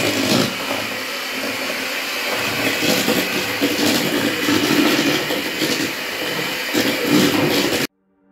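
Electric hand mixer running, its beaters whirring and rattling in a stainless steel bowl of cake batter. It stops abruptly near the end.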